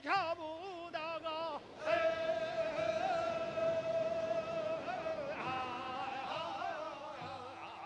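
A single voice singing a Korean folk song, with a wide, wavering vibrato and a long held note in the middle.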